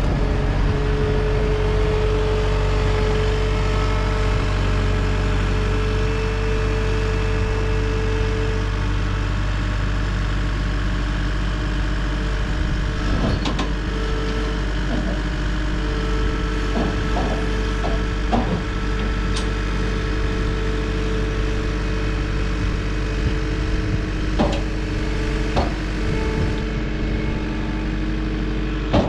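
Cat 259D skid steer's diesel engine running steadily, with short knocks and clanks from the machine in the second half.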